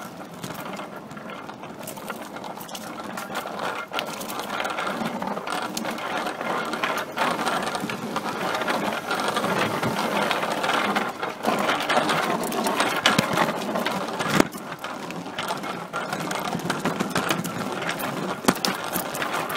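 A bicycle rattling as it is ridden, picked up by a camera carried in its wire basket: a steady mechanical rattle with many small clicks that grows louder after about four seconds.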